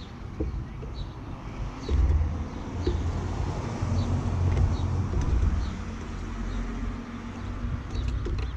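A low, uneven rumble of traffic or wind on the microphone, with short high bird chirps repeating about once a second.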